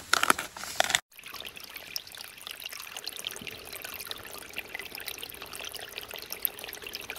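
Water trickling and splashing steadily with small crackling ticks, starting abruptly after a short gap about a second in.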